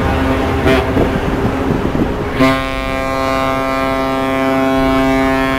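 A ship's horn sounding one long, steady blast that starts about two and a half seconds in, after a stretch of rushing noise.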